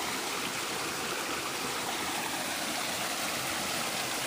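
Steady rush of flowing water, an even noise like a stream.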